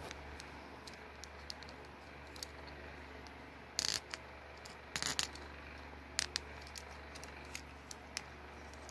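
Small plastic LEGO pieces clicking and rattling in the hands as parts are pulled off and fitted, in short clusters of clicks about four and five seconds in, with lighter scattered clicks between.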